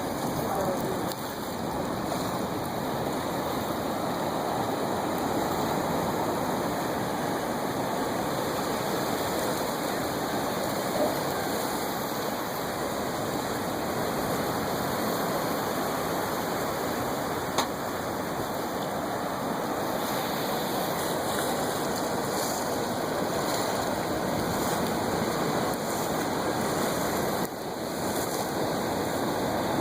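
Steady rushing wash of ocean surf, with a single brief click a little past the middle.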